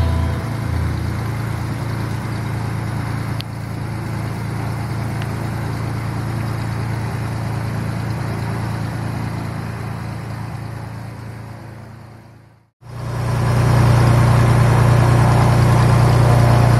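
Light aircraft's piston engine running, heard from inside the cabin as a steady drone. It fades out about twelve seconds in and, after a brief gap, comes back louder with a strong low hum as the plane readies for take-off.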